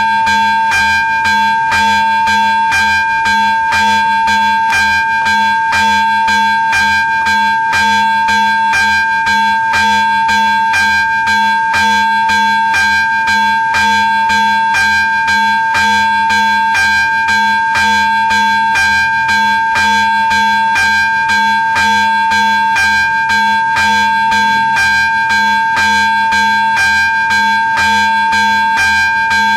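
Electronic warning bell of an AŽD 71 railway level crossing ringing, a ding about twice a second over a steady ringing tone: the crossing is activated for an approaching train.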